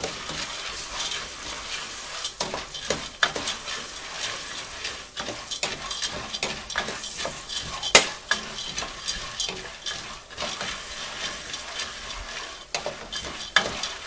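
Corn kernels toasting in hot oil in a pot, sizzling steadily with many sharp pops and crackles as the kernels burst. The loudest pop comes about eight seconds in.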